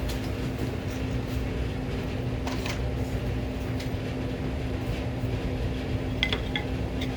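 Steady machine hum, like a fan or air conditioner running, with a few light clicks and taps of small parts being handled, about two and a half seconds in and again near the end.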